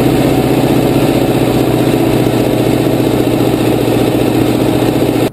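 Zetor Forterra tractor's diesel engine running steadily as the tractor drives along a road, heard loud from the cab; it cuts off suddenly at the end.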